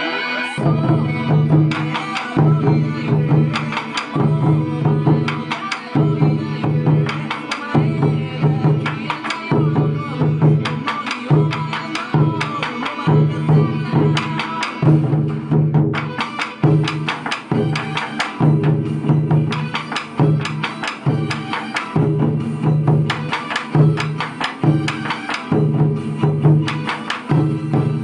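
Chu-daiko taiko drums struck together with wooden bachi sticks in a steady repeating rhythm: deep drum strikes with sharp attacks, on and on without a break.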